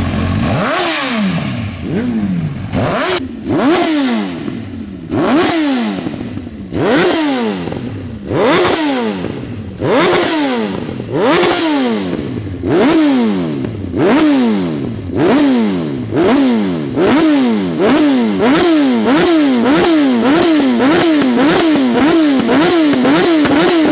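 Honda CB1000's inline-four engine through Akrapovic exhausts, revved again and again, each rev rising and falling back, the blips coming faster toward the end. Sharp pops from the exhaust punctuate the revs as it shoots flames.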